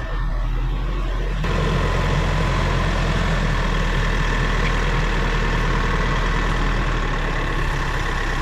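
A vehicle engine idling steadily, a low drone that grows a little louder about a second and a half in.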